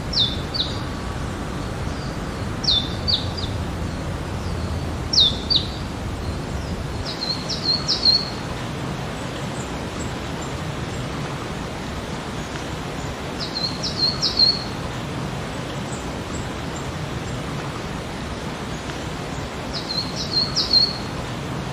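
Steady rain hiss with a small bird calling over it. At first the bird gives short, high chirps that slide downward, in twos and threes every few seconds; later it gives quick, rapid phrases of several notes.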